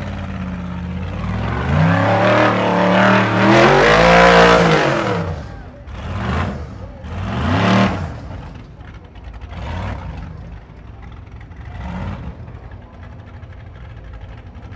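Ultra4 race car's engine revving hard under load as it crawls over boulders, rising and falling in pitch, loudest in the first five seconds, then several shorter bursts of throttle.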